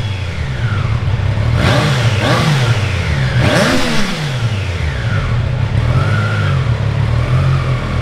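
Triumph Tiger Sport 660's 660cc inline three-cylinder engine idling, with the throttle blipped in several quick revs between about one and a half and four seconds in, each falling straight back to a steady idle.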